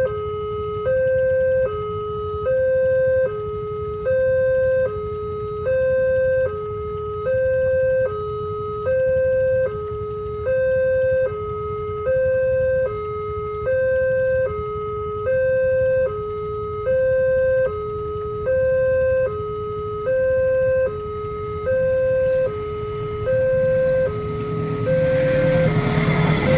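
Railway level-crossing warning alarm sounding a repeating two-tone high-low signal, about one high-low cycle a second, warning that a train is coming. A louder rumble builds near the end.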